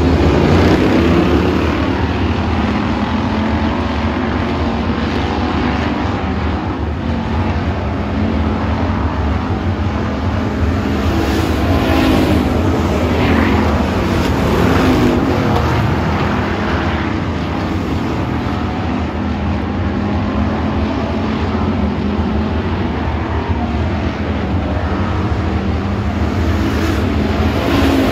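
A pack of hobby stock race cars running at speed on a dirt oval: several engines at once in a loud, steady drone, their pitch rising and falling as cars pass close by.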